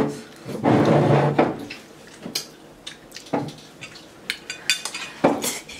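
Tableware clatter: forks knocking and scraping against ceramic bowls. It is loudest in the first second and a half, then comes as a few single sharp clinks.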